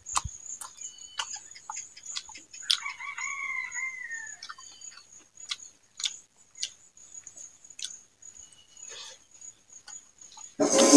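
Close eating sounds: short clicks and smacks of fingers working rice and of chewing, over a steady high insect trill. A rooster crows once, about three seconds in, a single arching call lasting under two seconds. A louder rustling burst comes near the end.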